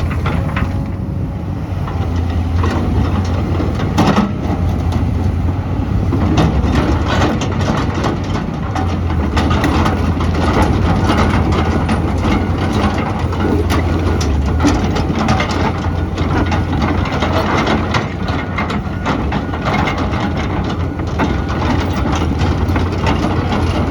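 Caterpillar 320 hydraulic excavator's diesel engine running steadily, with frequent short knocks and clanks over the steady drone.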